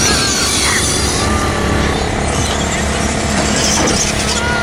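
Radio-controlled monster trucks driving and jumping on a grass track, their motors whining up and down in pitch over a continuous rush of noise.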